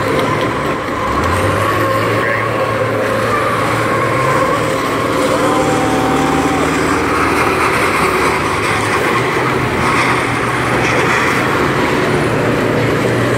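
Several school bus engines running together as the buses race around a figure-8 track: a loud, steady drone of engines and track noise.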